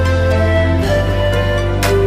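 Background music: slow, soft instrumental music of sustained notes over a deep bass line, with a soft percussive hit near the end.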